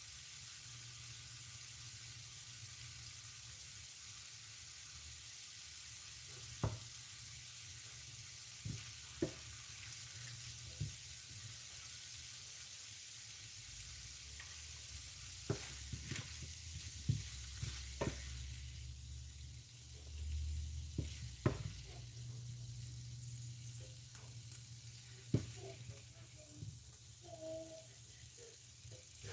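Broccoli and potatoes sizzling in a stainless steel skillet: a steady soft hiss of frying, with scattered knocks and scrapes of a wooden spatula against the pan.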